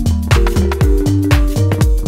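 Background electronic dance music with a steady kick-drum beat and held synth chords.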